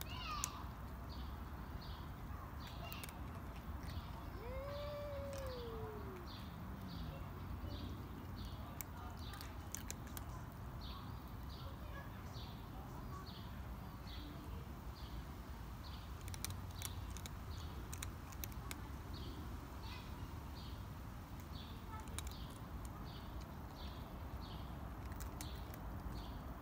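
Cat giving one drawn-out low yowl that rises and then falls in pitch about five seconds in: a hostile call between two cats in a tense standoff. A short, falling high call sounds right at the start. Throughout, a rhythmic high chirping, about one to two a second, runs over a low steady hum.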